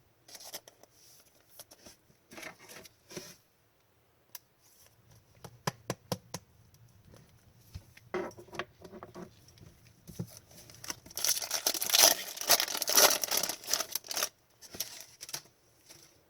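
Trading cards being handled: short clicks and rustles as cards are slid and flicked against each other, then a loud stretch of tearing and crinkling about eleven seconds in as a card pack wrapper is ripped open, with a little more card shuffling near the end.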